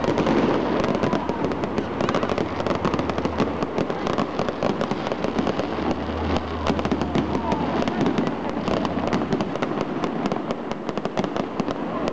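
Fireworks display going off: a dense, unbroken crackle of sharp pops, many reports a second, with no pause.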